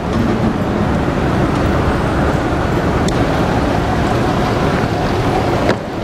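Steady rumbling noise of a moving vehicle, dropping out for a moment near the end.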